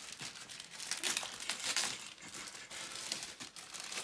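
Packaging crinkling and rustling in a series of irregular bursts as it is pulled open by hand, loudest about a second in.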